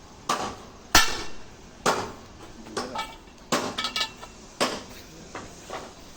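Hammer blows on the steel parts of an excavator crawler track, about nine uneven strikes roughly a second apart, each with a short metallic ring; the loudest comes about a second in.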